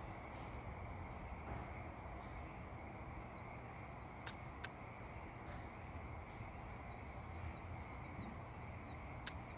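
A few sharp ticks from a cooling stainless steel biomass camping stove, two close together about four seconds in and one near the end, over a low steady background hiss.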